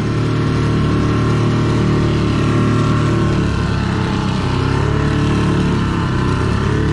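Tiller-steered outboard motor running steadily under way, pushing a small open boat along. A steady rushing noise of water and wind sits over the engine's hum.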